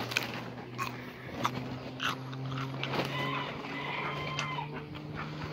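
A low, steady engine hum that rises slightly in pitch, with a few short clicks and rustles over it.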